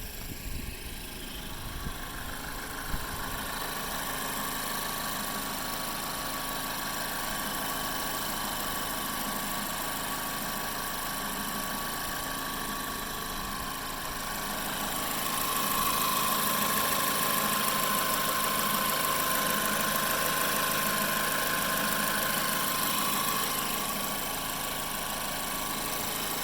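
A 2012 Mazda 3 Skyactiv's four-cylinder engine idling steadily. It runs smoothly with no belt squeal or squeak, on a new serpentine belt and a new water pump stretch belt. About halfway through it grows louder for several seconds, then settles back.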